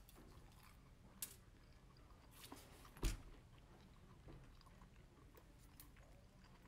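Quiet chewing of a bite of crispy fried chicken, with a couple of short crunches about one and three seconds in.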